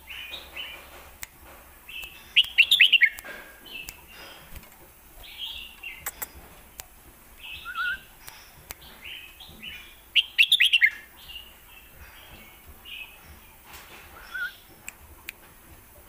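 Red-whiskered bulbul singing: short chirped notes throughout, with two louder runs of quick falling notes, about two and a half seconds in and again around ten seconds in.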